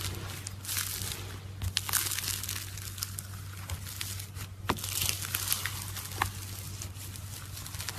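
Slime being squished and worked by hand: continuous wet crackling and crinkling with frequent sharp little pops and clicks, over a steady low hum.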